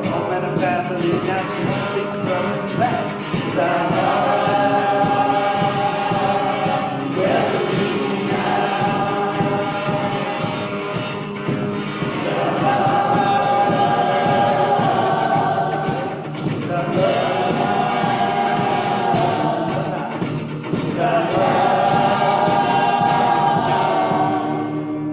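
A group of voices singing a song together in phrases of several seconds, with held notes, over a steadily strummed guitar.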